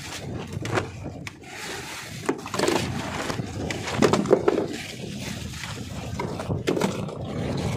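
Knocks and scrapes of a pail and gear against the wooden hull of an outrigger fishing boat, with water splashing as it is poured over fish in a basin, over a steady low rumble.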